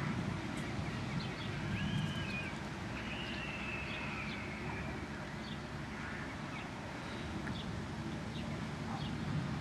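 Birds calling: a few drawn-out whistled calls, one of them longer and slowly falling, and scattered short chirps, over a steady low rumble.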